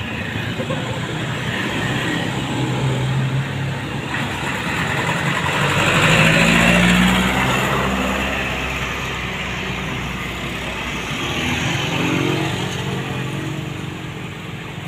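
Road traffic passing close by: car and minibus engines with tyre noise, loudest about six to seven seconds in as a vehicle goes past, then motorcycle engines near the end.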